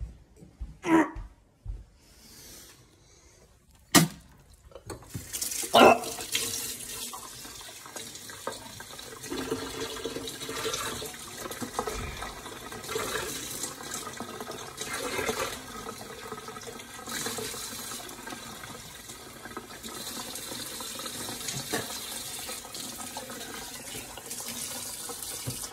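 A kitchen tap runs steadily into the sink from about six seconds in. Before that there are a few short knocks and a brief muffled sound.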